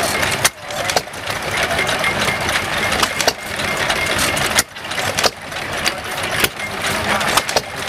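Small vertical single-cylinder stationary engine running, with sharp beats at uneven intervals over a steady mechanical clatter.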